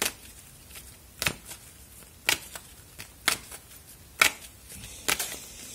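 Oracle cards being handled: sharp card clicks, about one a second, with two close together near the end.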